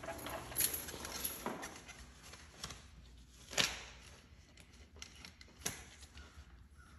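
A few scattered light knocks and taps, the loudest about halfway through, over a faint steady low hum.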